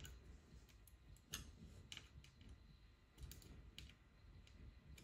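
Faint, irregular light clicks of a small metal part being handled between the fingers, several over a few seconds, the sharpest about a second and a half in.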